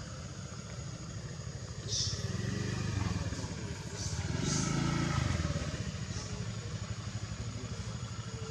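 A motor vehicle engine running, its low rumble swelling about two seconds in, loudest around the middle, then easing off. A thin steady high tone and a few short high-pitched sounds lie over it.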